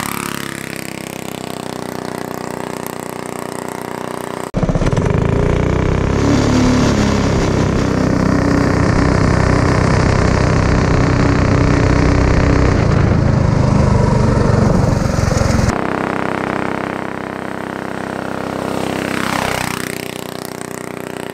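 Go-kart's small single-cylinder four-stroke engine running under throttle as the kart drives. It is loud and close, heard from on board, between about 4.5 and 16 seconds in. Otherwise it is heard from behind the kart, with a brief swell near the end.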